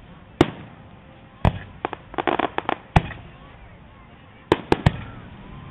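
Aerial firework shells bursting: single sharp bangs about half a second and a second and a half in, a rapid run of small pops, another bang about three seconds in, then three quick bangs near the end.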